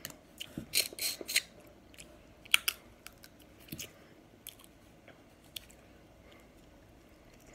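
Close-up eating of snow crab legs: sharp clicks and snaps of shell being cracked and picked, with mouth smacks and chewing. The loudest cluster comes about a second in, with another at about two and a half seconds and scattered clicks after.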